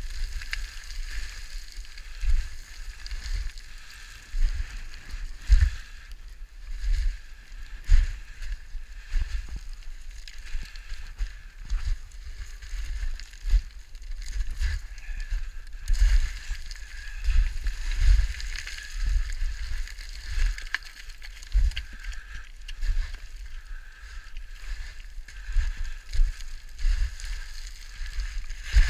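Footsteps going down loose scree: a dull thud with each step, about once or twice a second, with an occasional sharper click of stones knocking together.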